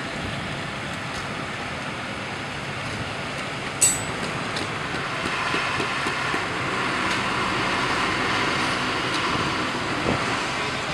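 Concrete mixer truck engine running steadily at a road-works site, with one sharp click about four seconds in.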